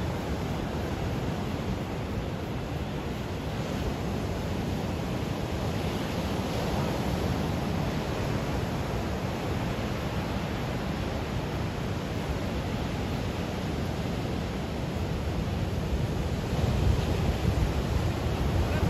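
Steady rushing noise of heavy surf breaking on the shore, with wind buffeting the microphone; the low rumble swells louder near the end.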